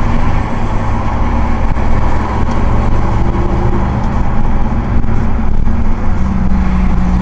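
Car driving at about 55–60 km/h, heard from inside the cabin: a steady low rumble of engine and tyre-on-road noise.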